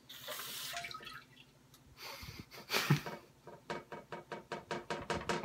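Water from a Luxe Bidet Neo 180 toilet-seat bidet: a hiss for about a second at the start, then water dripping and trickling into the toilet bowl, the drips quickening near the end.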